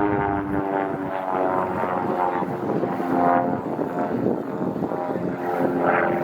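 Propeller airplane engine running as the aircraft flies by, its pitch shifting several times.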